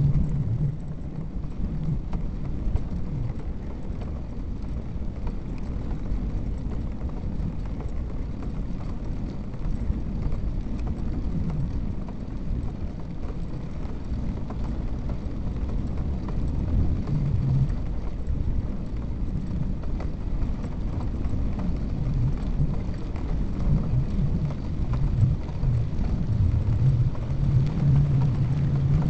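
Wind buffeting the microphone of a camera mounted on a moving bike: a steady low rumble that flutters unevenly.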